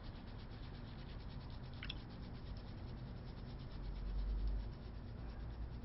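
Quiet room tone: a faint steady hiss, with one short click about two seconds in and a low rumble swelling briefly near four seconds.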